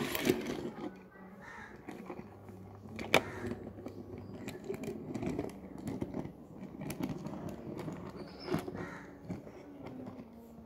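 Toy cars and plastic building blocks being handled and pushed about on a wet plastic tray: scattered clicks and knocks, with a sharp knock at the start and another about three seconds in.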